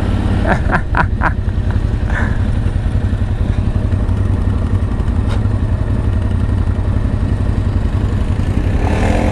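ATV engine running steadily, a continuous low pulsing rumble. A few short sharp knocks come about half a second to a second and a half in.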